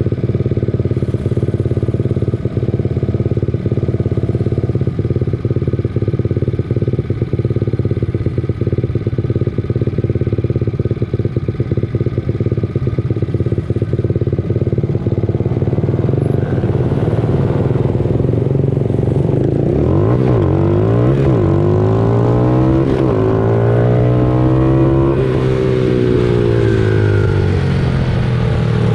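Several 90 cc pit bike engines racing. At first they run at a steady pitch with a rattling clatter; from about sixteen seconds in, several engine notes overlap and rise and fall as bikes rev, shift and pass.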